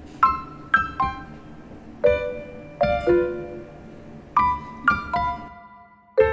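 Background piano music: single notes and pairs of notes struck a few at a time, each ringing and fading away, in a slow, gentle melody.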